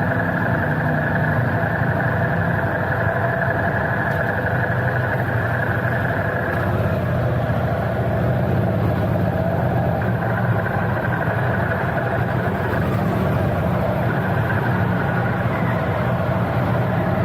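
Car engine running steadily, a continuous low hum with a few steady higher tones over it and no change in pitch.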